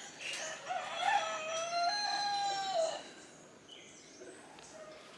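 A rooster crowing once, one long call of about two seconds that dips in pitch at the end.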